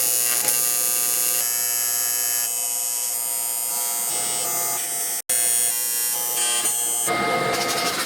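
Welder laying a continuous bead along the seam of a steel quarter panel: a steady buzzing crackle, with one brief break about five seconds in.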